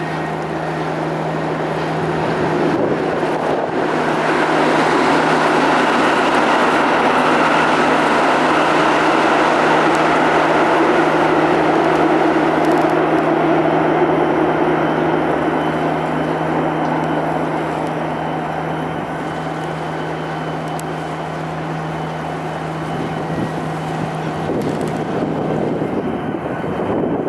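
A steady low engine hum under a broad rumble from a passing vehicle that builds over several seconds, holds, and fades away in the second half.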